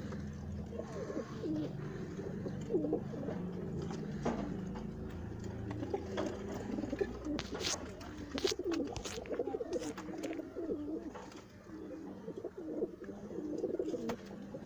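Domestic pigeons cooing over and over in the loft, with a few sharp clicks in the middle.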